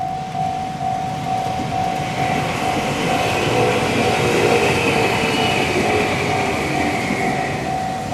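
Japanese railway level-crossing alarm ringing a steady run of electronic bell tones, about two and a half a second, while a train runs through the crossing. The train's rumble and wheel noise build up about two seconds in, are loudest midway, and fade near the end.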